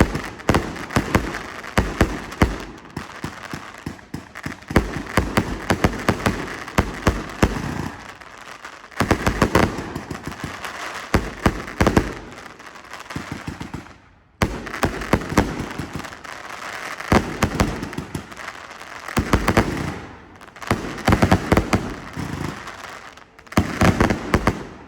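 Ace of Aces 160-shot firework cake firing: rapid volleys of shots with crackling bursts, coming in waves with brief pauses between them.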